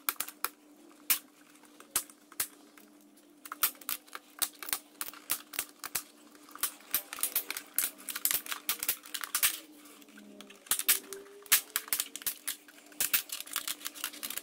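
Sharp, irregular plastic clicks and snaps as the SNOO bassinet's plastic hold-down clips are pried loose from the platform with a black nylon spudger. The clicks are sparse at first, then come in quick clusters.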